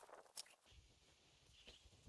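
Near silence: one faint click about half a second in, then a faint low rumble.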